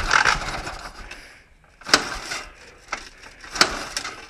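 Ural Tourist motorcycle kick-started, three or four times: each stroke gives a sharp clack and a short rush as the flat-twin engine turns over without catching. The engine, just fitted with electronic ignition, does not start.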